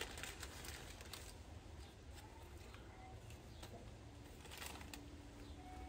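Quiet background: a faint, steady low hum with a few soft clicks and rustles.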